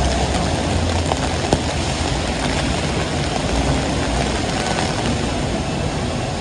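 Heavy rain falling steadily, a dense hiss, under a low rumble that is strongest in the first second. A sharp tap about one and a half seconds in.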